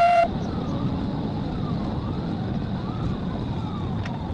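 Police siren rising and falling about once a second over a steady vehicle and road rumble from a Chevy Tahoe squad car in pursuit. A short beep sounds right at the start.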